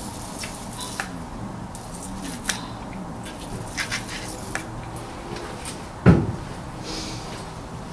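Scattered clicks and light knocks of a hand working around a car's oil filter, reaching up past the exhaust to hand-tighten it, with one dull thump about six seconds in.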